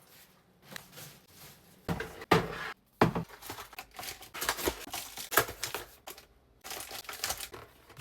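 Grocery packaging and bags crinkling and rustling as groceries are unpacked, with a few short knocks of items being handled and set down.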